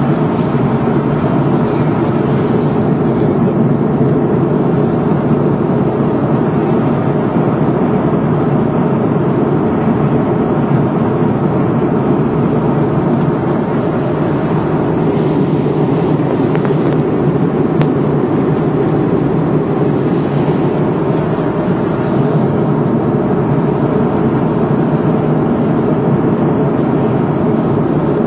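Steady noise of an airliner's engines and airflow heard from inside the cabin in flight, unchanging throughout.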